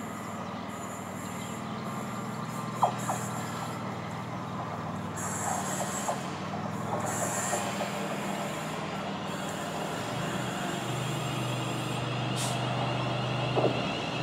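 Class 350 Desiro electric multiple unit pulling into a platform and slowing to a stop, with a steady low hum from its traction equipment. There are brief brake squeaks along the way, and a sharp click a little under three seconds in.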